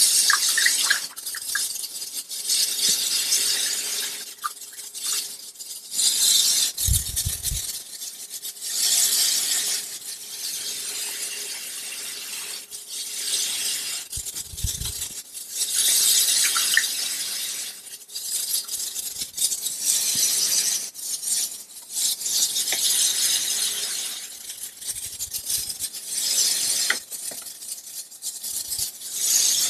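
Water pouring from a plastic jug through a plastic funnel into plastic reagent carboys, in repeated splashing surges a second or two long, with two low thumps from the containers being handled.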